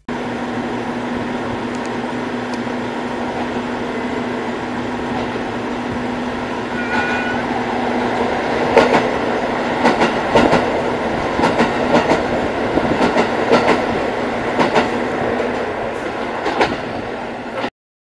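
Diesel trains at a single-track passing station: a steady engine hum, then from about eight seconds in the rhythmic clickety-clack of wheels over rail joints as the limited express runs past, about a dozen sharp clacks. The sound cuts off abruptly near the end.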